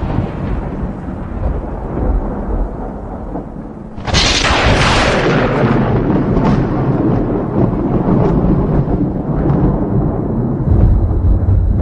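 Violent thunder: a low rumble dies away, then about four seconds in a sharp thunderclap breaks and rolls on as long, low rumbling with scattered crackles, swelling again near the end.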